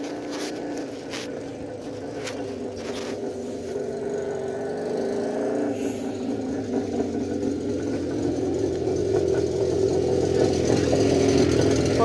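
A motor vehicle engine running nearby, a low steady drone that grows steadily louder throughout. A few light clicks sound in the first three seconds.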